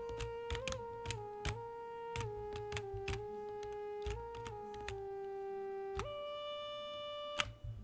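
Sampled duduk (Ethnaudio Breath of Anatolia 'Doudouk A' Kontakt patch) playing a slow line of single held notes that glide into one another, mostly stepping downward. About six seconds in it jumps up to a higher held note, which cuts off shortly before the end. Keyboard keys click as the notes are played.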